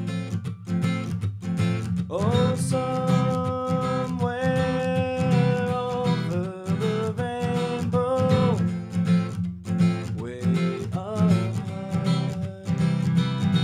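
Acoustic guitar strumming a steady rhythm. About two seconds in a sustained melody line, sliding into and between its notes, enters over the strumming and drops out around nine seconds.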